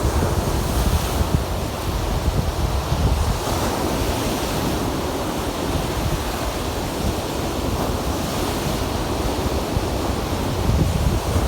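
Lake waves breaking and washing on the shore, the wash swelling and easing every couple of seconds over a steady low rumble, with wind buffeting the microphone.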